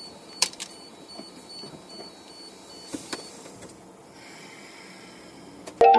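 Low cab noise recorded by a vehicle's dashcam, with a few sharp clicks and a faint high beep that comes and goes during the first half. Just before the end a click cuts it off and a chiming music sting begins.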